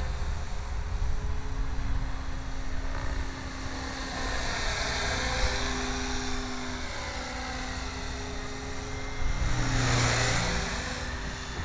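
Gaui RC helicopter in flight: a steady drive and rotor whine whose pitch shifts up and down as the pilot works the controls, with a louder rush of blade noise about ten seconds in. Freshly lubricated throughout, it runs quiet and smooth.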